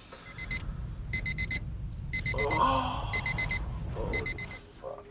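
Digital alarm clock beeping in groups of four quick, high beeps, repeating about once a second, over a low steady hum.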